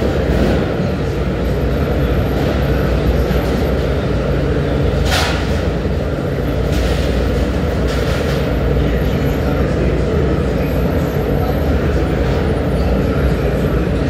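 Industrial annealing furnace running mid-burn: a steady, loud roar with a low hum underneath, and a short sharp noise about five seconds in.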